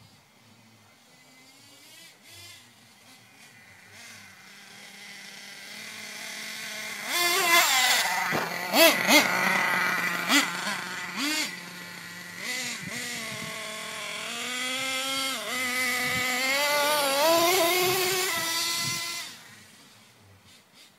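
Small high-revving nitro engine of an HPI Savage X 4.6 RC monster truck with an LRP tuned exhaust. It grows louder as the truck approaches, then revs up and down with sharp throttle blips. It falls away abruptly near the end.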